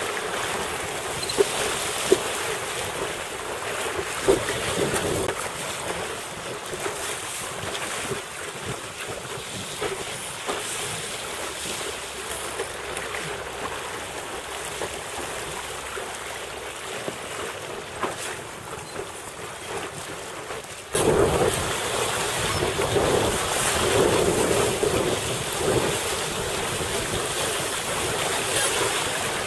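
Wind buffeting a helmet-camera microphone over water rushing and slapping under a windsurf board sailing through chop, with a few sharp knocks early on. About two-thirds of the way through, the rush jumps suddenly louder and deeper.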